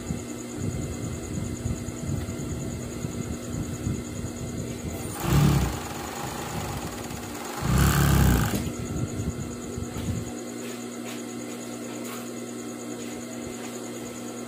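Industrial sewing machine with its motor humming steadily and two short bursts of stitching, about five and eight seconds in, as a shorts pocket bag is seamed.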